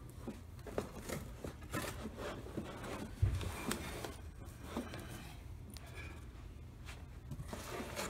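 Cardboard box rustling and scraping as a fire alarm control panel cabinet is slid and lifted out of its packaging, with scattered small knocks and one dull thump about three seconds in.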